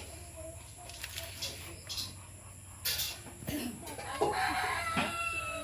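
A rooster crows once, starting about four seconds in and ending on a held note. A few faint clicks come before it.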